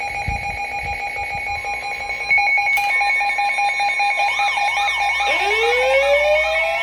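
Emergency Alert System attention signal: two steady tones sounding together. About four seconds in a warbling siren tone joins it, and just after that a siren winds up, rising in pitch.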